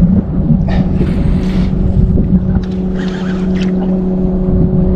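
Outboard motor running steadily at a low, even speed, with wind buffeting the microphone. Two brief hissing sounds come about a second in and about three seconds in.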